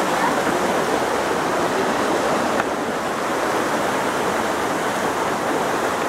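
Waterfall rushing: a loud, steady roar of falling water that dips slightly about two and a half seconds in.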